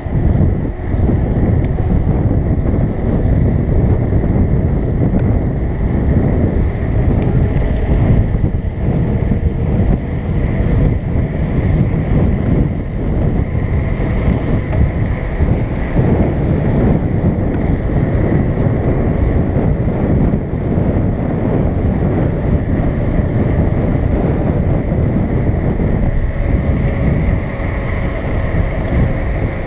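Wind buffeting the microphone of a camera carried on a moving bicycle: a loud, steady low rumble, with a faint high hum underneath.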